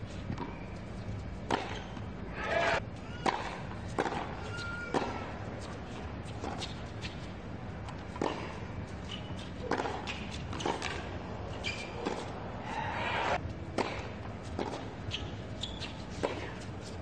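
Tennis ball struck by rackets and bouncing on a hard court during a rally, sharp single knocks coming roughly every half second to a second and a half, over a steady hum of crowd ambience. A voice is heard briefly a couple of times between the hits.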